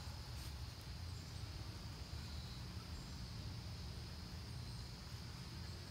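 Steady high-pitched chorus of insects in woodland, with a low rumble underneath.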